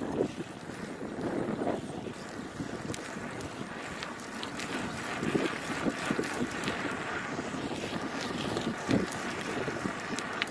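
Wind rushing over a phone's microphone during a bicycle ride: a steady noise with a few soft bumps.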